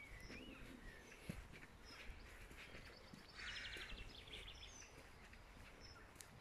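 Small birds calling faintly: short whistled notes that slide up and down and high chirps, with a brief fast rattle about halfway through. Faint footsteps on an earth path sound under them.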